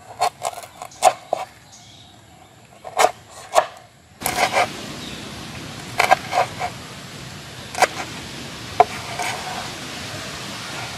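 Knife chopping on a wooden cutting board: sharp, separate knocks in small clusters, first through a firm root, then through fresh red chilies. About four seconds in, a steady hiss comes in under the chops.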